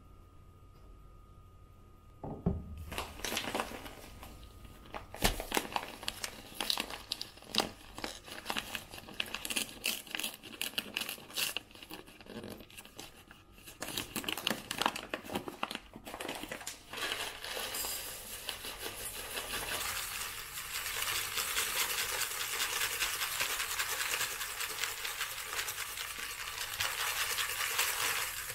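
Plastic packaging of rolled oats crinkling and rustling, with scattered clicks and taps. About halfway through it gives way to a steady dry rustle of oats that lasts to the end.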